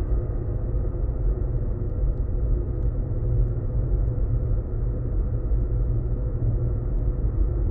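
Steel footbridge handrails on the Humber Bridge vibrating in high wind, heard through a contact microphone: a steady deep rumble with several faint, steady ringing tones held above it.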